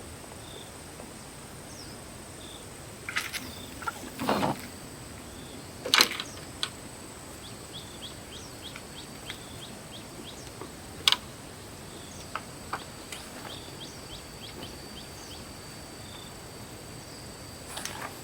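Open-air ambience by the water: a steady high whine over a hiss, with small birds chirping in quick short calls through the middle, and a few sharp clicks or knocks, the loudest about six and eleven seconds in.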